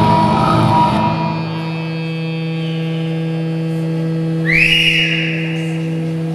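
Dense electronic stage music breaks off about a second in, leaving a steady humming electronic drone on one pitch. About four and a half seconds in, a short rising whoosh sweeps over the drone.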